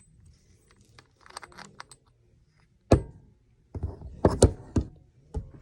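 Sharp metallic clicks and clinks of hook prosthetic hands handling a leatherworking awl and its thread. The clicks are irregular: a few faint ones, then one loud click about three seconds in, then a quick cluster near the end.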